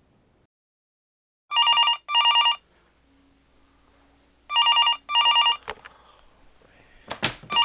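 Telephone ringing in pairs of short rings: two rings, a pause of about two seconds, two more, and another pair starting at the very end. A brief rustling noise comes just before the last pair.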